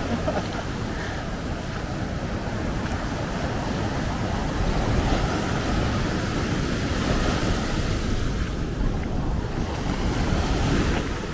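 Heavy ocean surf: waves breaking and foaming water washing up the beach in a continuous rush, with wind noise on the microphone.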